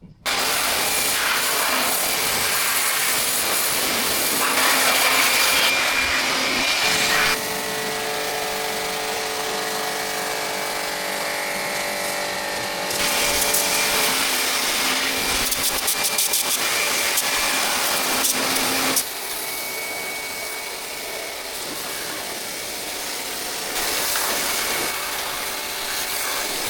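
Electric high-pressure washer running and spraying, a steady motor hum under a loud hiss, in several cut-together stretches that change abruptly.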